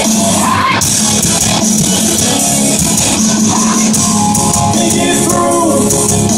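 Live rock band playing at full volume in a large arena, with drums, bass guitar and a singer's voice. Heard from the audience.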